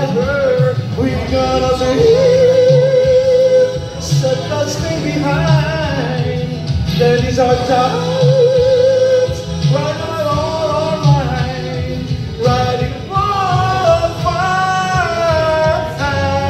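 A man singing into a handheld microphone over a backing track, his voice amplified through the room's speakers, with long held notes that waver in a vibrato.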